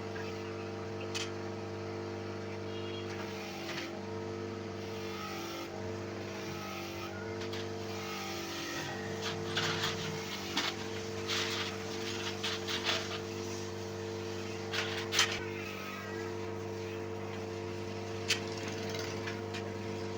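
A steady mechanical hum from a machine running, with a cluster of sharp metallic clicks and taps in the middle and one more near the end.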